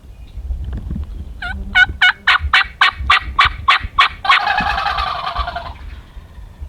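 Wild turkeys: a string of about ten yelps, then a rattling gobble about four seconds in that lasts over a second.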